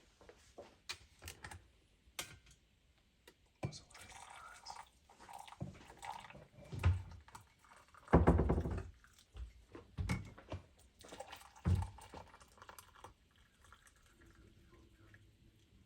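Scattered knocks and thunks of dishes or cups being handled, with liquid being poured. The loudest stretch is a rushing pour about eight seconds in.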